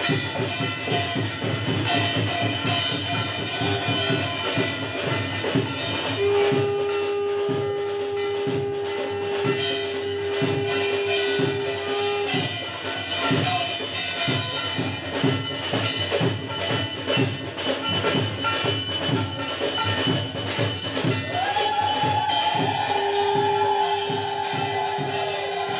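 Devotional puja music with a fast, steady beat of percussion and jingling bells. A long held note sounds from about six seconds in for some six seconds and comes back near the end, over a higher wavering tone that enters about three-quarters of the way through.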